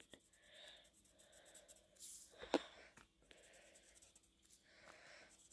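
Faint scratching of a graphite pencil making short sketching strokes on lined notebook paper, with a single short click about two and a half seconds in.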